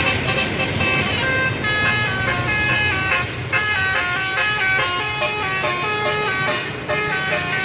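Tour bus's telolet basuri musical air horn playing a quick tune of stepped notes, with the bus's engine running underneath.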